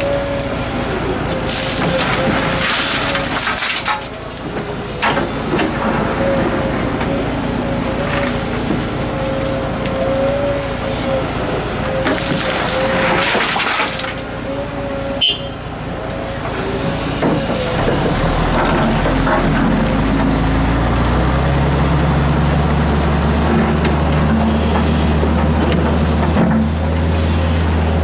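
Komatsu PC230-11 hydraulic excavator working, its engine and hydraulics running with a steady whine, as two bucket loads of rock and earth slide and rattle into a steel tipper truck body. Later a deeper diesel engine rumble builds and stays loud.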